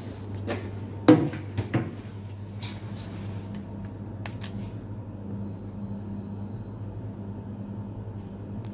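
A few sharp clicks and knocks, the loudest about a second in and fainter ones around four seconds, as buttons on a wall-mounted Daikin remote controller are pressed, over a steady low hum.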